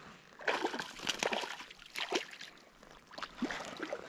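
Water splashing and sloshing in uneven bursts.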